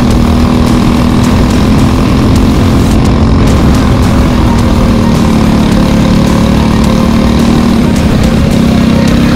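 Briggs & Stratton LO206 single-cylinder four-stroke kart engine running loud and close, at a fairly steady pitch.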